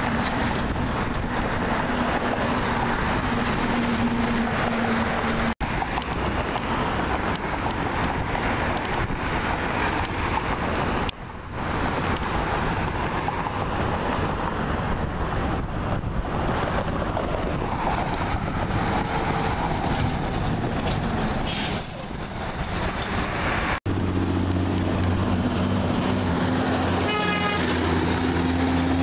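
Garbage trucks and other heavy trucks driving along a city street: engine and tyre noise, steady throughout. In the last few seconds one truck's engine drone stands out, low and even.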